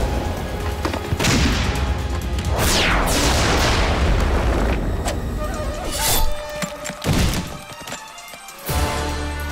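Cartoon battle sound effects: a heavy gun firing and explosions going off over background music, thinning out a little before the end.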